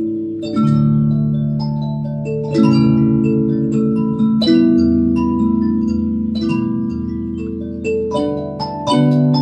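Harmony array mbira playing slow chords, its plucked metal tines giving almost sine-wave tones with a sharp attack that ring on and overlap. A new chord sounds about every two seconds, and a quicker run of notes follows near the end.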